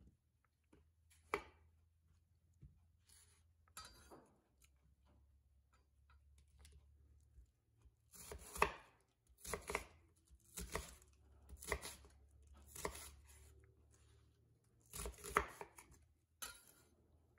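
A chef's knife cutting through a red onion and knocking on an end-grain wooden cutting board. There are a few separate knocks in the first few seconds, then from about halfway through a steady run of cuts about once a second, with a louder cluster near the end.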